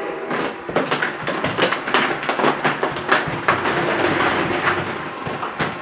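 Hollow plastic ball-pit balls being thrown and clattering down onto a wooden floor and against one another, as a quick, irregular run of light clicks and taps.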